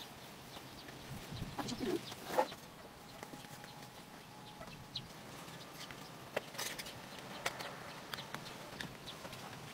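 A chicken clucking a few times, the calls bunched about two seconds in, with scattered light clicks later on.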